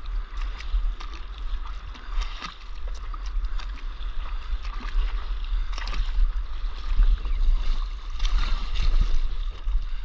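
Water rushing and splashing along the hull of a surfboard as it glides on a wave, with a constant low rumble on the board-mounted camera's microphone.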